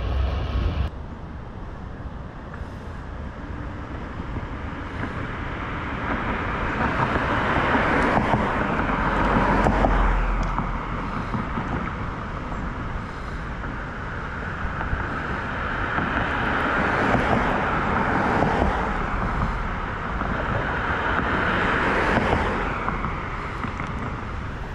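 Road traffic on a street: passing cars swelling and fading several times, loudest about eight to ten seconds in and again near the end. Wind rushes over the microphone of a moving bicycle for the first second.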